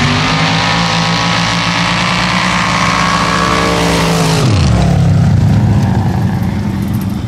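Formula Offroad sand drag cars launching and racing at full throttle, their engines revving high and steady. About four seconds in, the engine pitch drops sharply, and the engines carry on at a lower pitch.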